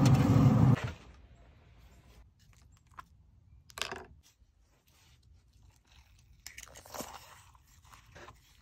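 A knife carving through a smoked chicken's crispy skin, with a few short crunches and scrapes, mostly from about six and a half seconds in. Before that, a loud, low, steady noise cuts off suddenly under a second in.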